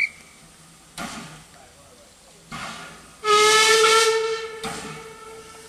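Steam locomotive whistle blown once about three seconds in. It sounds as a loud, steady chord for about a second and a half, then fades into a fainter tail. A few short sharp knocks come before it.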